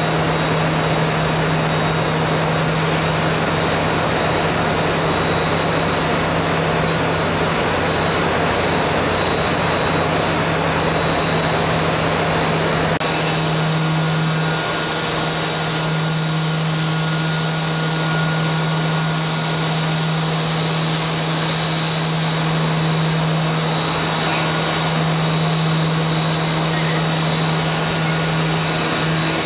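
Steady workshop machinery noise with a constant low hum. At a cut about 13 seconds in it turns hissier, with a few faint steady tones added.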